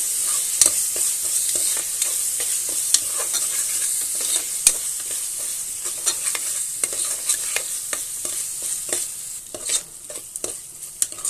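Chopped onions, green chillies, ginger-garlic paste and masala sizzling in hot oil in a pressure cooker, fried until the raw smell of the paste is gone, with a spoon clicking and scraping against the pot as it is stirred. The sizzle eases near the end, leaving the stirring clicks clearer.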